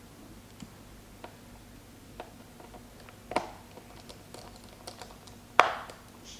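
Small screwdriver clicking and tapping on the screws and plastic base of a Dell G5 laptop as the screws are put back in after a RAM upgrade: light scattered ticks, with two louder clicks about three and a half and five and a half seconds in.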